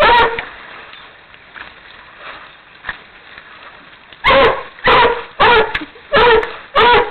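Dog barking: one bark at the start, a pause of about four seconds, then a run of five loud barks about two every second.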